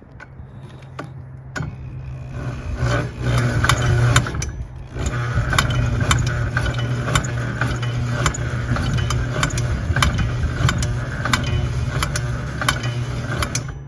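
Electric drill spinning the crankshaft of a Rotax 467 two-stroke twin snowmobile engine to crank it over without it firing: a steady motor whir with a regular tick a little under twice a second. The drill stops briefly about five seconds in and starts again.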